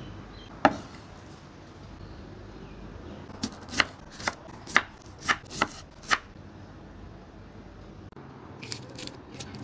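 Chef's knife cutting limes into wedges, the blade knocking on a bamboo cutting board: one knock near the start, a quick run of about seven knocks a few seconds in, and a few lighter ones near the end.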